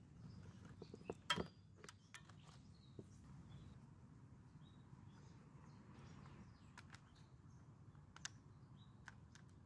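Near silence broken by a few faint sharp clicks and knocks as a screwdriver works at the chainsaw's plastic handle and case parts, the loudest about a second in. Faint bird chirps can be heard now and then.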